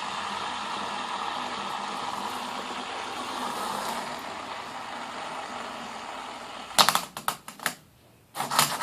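Fidget spinners whirring steadily, then a quick run of sharp clicks and clacks starting about seven seconds in.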